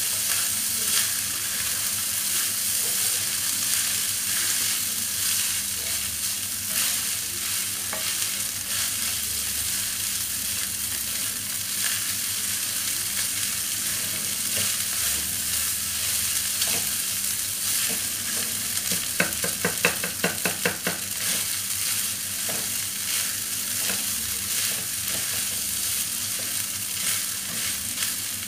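Egg fried rice sizzling in a kadai while a flat slotted spatula stirs and tosses it, scraping the pan in frequent strokes. About two-thirds of the way through comes a quick run of sharper, louder spatula strokes against the pan.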